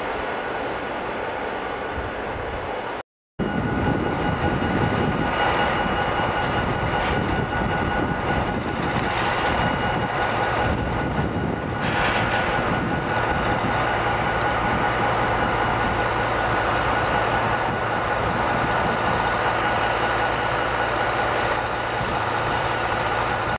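Diesel locomotive hauling loaded ballast hopper wagons as it approaches along the track. After a sudden cut about three seconds in, the locomotive's EMD diesel engine is heard close up, running steadily with a constant whine over its throb.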